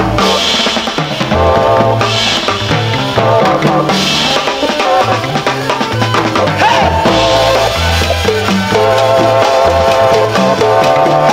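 Cuban son montuno dance music played from a 45 rpm vinyl single: drum kit and percussion over a moving bass line, with held instrumental chords above and a cymbal-like wash about every two seconds.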